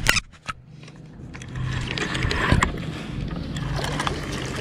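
Crab trap being pulled up by its line, with scraping, rattling and small clicks that start about a second and a half in. A steady low hum runs underneath.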